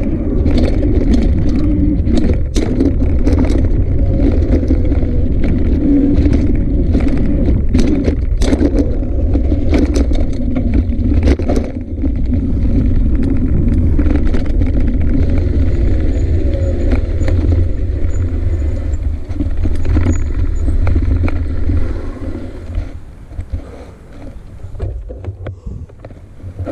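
Bicycle ride on a rough forest trail heard from a handlebar-mounted camera: a steady low rumble of wind and ride vibration, with rattling knocks as the bike jolts over bumps and boardwalk planks. It quietens near the end as the bike slows to a stop.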